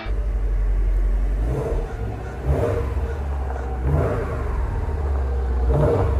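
Subaru WRX STI's turbocharged flat-four engine running at low revs as the car pulls away: a steady low rumble with several brief swells in revs.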